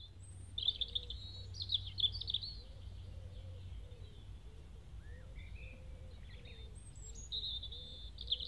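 Birdsong: a small songbird's rapid trilling song, heard twice, over a run of soft, lower repeated notes and a steady low rumble.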